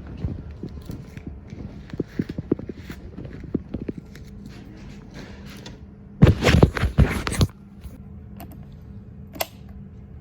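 Battery-powered floor cleaning machine running with a steady hum, with scattered clicks and knocks and a loud clatter lasting about a second just past the middle.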